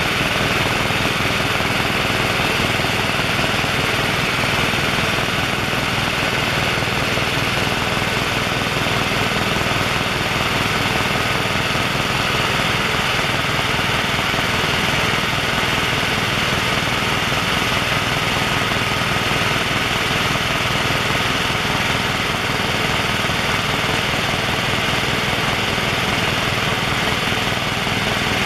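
Cabin noise inside a Helijet Sikorsky S-76 twin-turbine helicopter in cruise flight: a loud, unbroken din of engines and rotor with a thin steady high whine.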